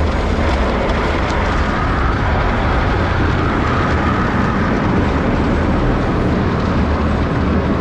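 Automatic car wash running over the car, heard from inside the cabin: a steady, loud rush of noise with a low rumble underneath.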